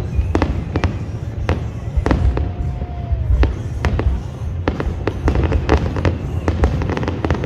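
Fireworks display: a rapid, irregular run of sharp bangs and crackles over a steady low rumble, with a short whistling tone about two seconds in that dips slightly in pitch as it ends.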